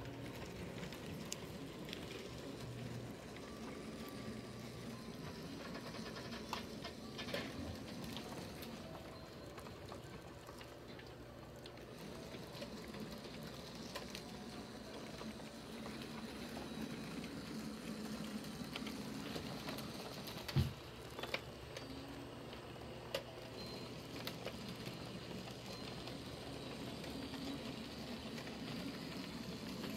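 Small electric motors and gear mechanisms of animated Christmas village pieces running steadily: a low hum with a fine clattering whir and a few scattered clicks, one sharper click about two-thirds of the way through.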